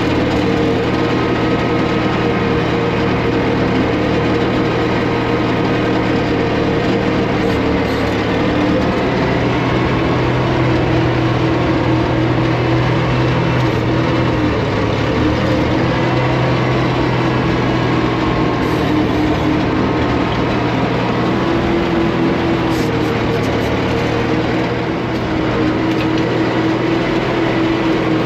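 Gasoline engine of a 1972 Allis Chalmers M65 road grader running steadily, its pitch rising and falling slightly. It runs on points ignition, and its choke linkage has just been fixed.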